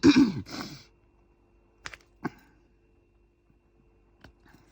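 A brief, throaty vocal sound at the start, then a few light, widely spaced clicks of diamond-painting drills being tapped onto the canvas with an applicator pen.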